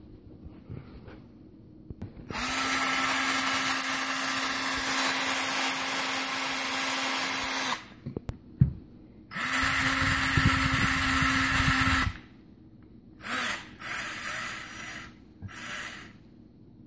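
Ryobi cordless drill running under the trigger, drilling out the hole in a wine opener's guide slug so the auger can pass through. It runs steadily for about five seconds, stops, runs again for about three seconds, then gives three short bursts near the end.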